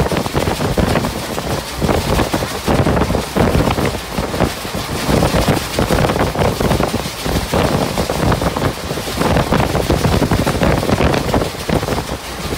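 Moving train running along the track, a loud rushing noise with wind buffeting the microphone, rising and falling unevenly.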